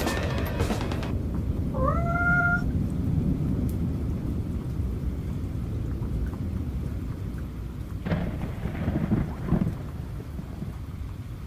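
Thunderstorm ambience: low rumbling thunder with rain, and a single cat meow about two seconds in that rises in pitch and then holds briefly.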